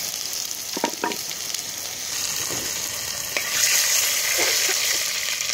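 Chopped seasoning, curry leaves and whole cumin seeds sizzling in hot oil in a metal pot, with a few short scrapes of a metal spoon stirring against the pot. The sizzle grows louder about three and a half seconds in.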